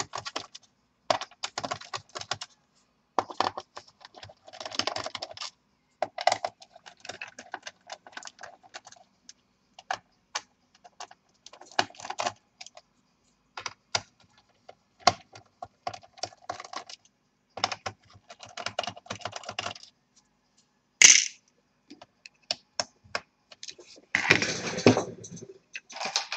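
Irregular small clicks, taps and clinks of a screwdriver and loose screws as the screws are taken out of a laptop's plastic bottom cover. About three-quarters of the way through there is one short sharp scrape, and near the end a longer scraping stretch.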